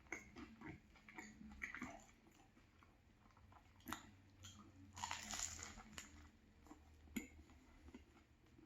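Faint eating and handling sounds from a crusty banh mi: scattered soft crunches and clicks, with a brief rustle about five seconds in.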